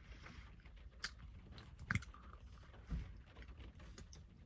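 Faint chewing of banana bread with the mouth open: soft, wet mouth clicks, a few louder ones about one, two and three seconds in.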